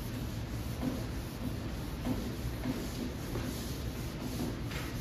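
Wet sanding by hand: 800-grit sandpaper on a sanding block rubbed back and forth over the clear coat of a Chevrolet Impala door. It makes a soft scrubbing stroke that repeats a little under twice a second.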